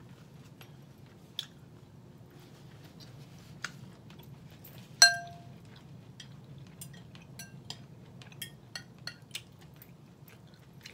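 Metal fork clinking against a glass bowl: one sharp, ringing clink about halfway through, then a run of lighter taps and scrapes as the food is scooped up.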